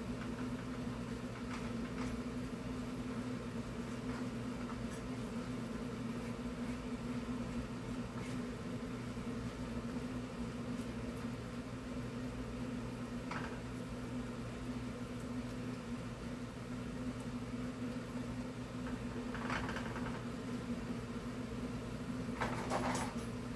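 Steady hum of a kitchen range-hood exhaust fan and air conditioner running, with a few faint short scrapes of a spatula stirring in a nonstick pan.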